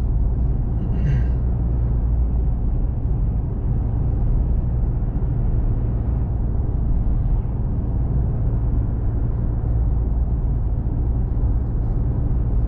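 Steady road and engine noise of a vehicle driving along, heard inside the cabin: a low, even rumble with tyre hiss.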